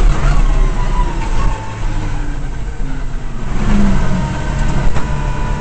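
Subaru Impreza S14 WRC rally car's turbocharged flat-four engine heard from inside the car: the revs fall over the first second and a half as the car slows, then it runs on at lower revs with a brief rise about four seconds in.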